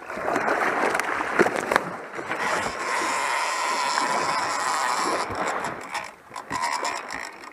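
A hooked blue shark splashing and thrashing at the boatside. Then, a couple of seconds in, a fishing reel's drag gives a steady whine for a few seconds as the shark runs and pulls line off, with a shorter run of it near the end.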